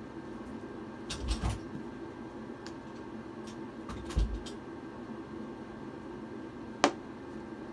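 Steady low room hum with a few scattered offscreen knocks and bumps: a short cluster about a second in, a dull thump about four seconds in, and one sharp click near the end.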